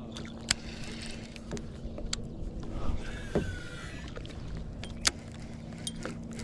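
Kayak and fishing gear on the water: scattered sharp clicks and knocks over a steady low hum, with a brief high gliding whine about three seconds in.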